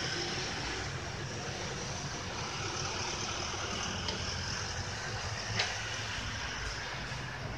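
Road traffic from the street below: a steady rumble and hiss of passing vehicles, with one sharp click about five and a half seconds in.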